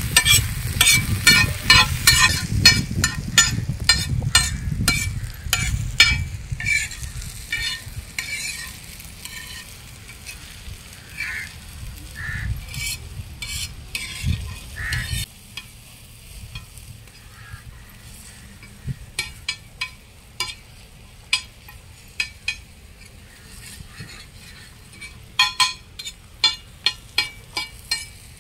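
Metal spatula scraping and tapping rapidly on a large iron pan as chopped onions, tomatoes and curry leaves sizzle in oil. The stirring eases after a few seconds, the background drops suddenly about halfway through, and scattered sharp taps come back near the end.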